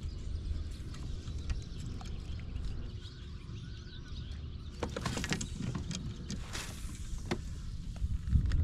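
Clicks and knocks of an angler moving about and handling gear on a plastic fishing kayak, over a steady low rumble. The knocks bunch together a little past halfway, and it grows louder near the end as he sits back down.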